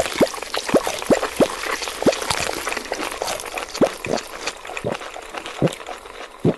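Liquid bubbling and plopping: a string of short bloops, each rising in pitch, coming irregularly over a dense crackling fizz.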